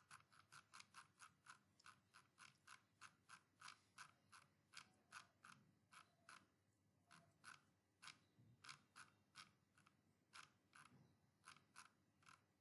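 Faint computer mouse clicks, two to three a second, somewhat unevenly spaced, with short pauses between runs.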